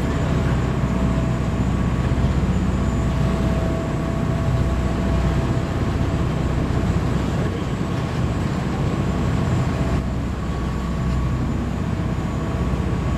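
An engine running steadily: a constant low rumble with a faint steady whine above it, holding the same level throughout.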